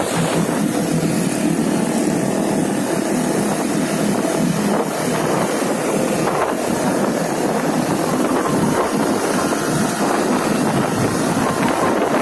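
Steady road noise from a moving vehicle, with wind buffeting the microphone.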